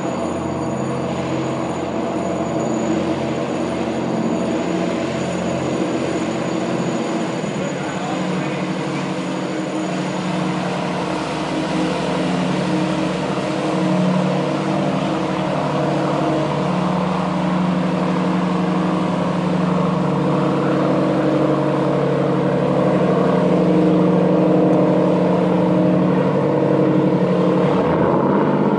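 Small fishing boat's engine running loud and steady as the boat motors past, growing louder in the second half.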